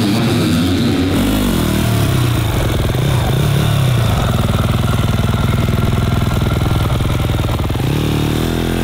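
Yamaha motocross bike engine running, revving up and down in short blips, then holding a steady note, and revving again near the end.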